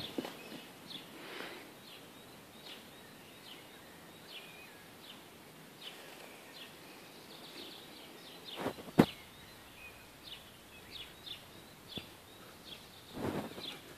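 Small birds chirping in short, high, often falling chirps, scattered through a quiet background. A single sharp knock about nine seconds in is the loudest sound, and a pony's soft hoofbeats on arena sand come in near the end.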